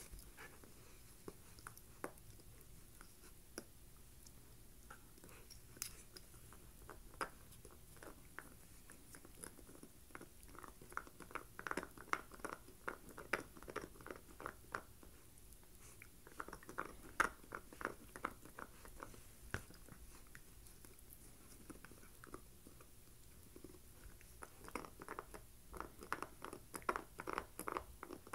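Corgi puppy gnawing a deer antler: sharp clicking and scraping of teeth on hard antler, in three dense bouts with only scattered clicks in between.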